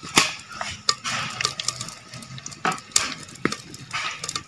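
Cooking utensils clinking and knocking against a pot, with about five sharp knocks scattered through over a light hiss.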